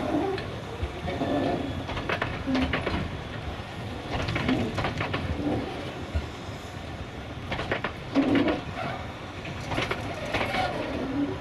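Carriage wheels of a narrow-gauge steam tourist train clattering over rail joints, in clusters of sharp clacks every second or two over a low rolling rumble.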